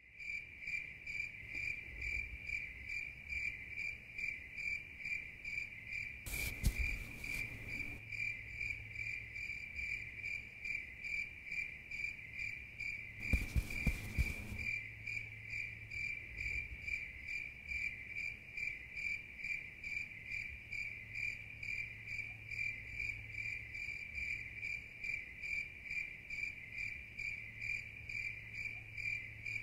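Crickets chirping steadily, a rhythmic pulsing of about two chirps a second. Two short noisy bursts with low knocks break in, one about a quarter of the way in and one about halfway.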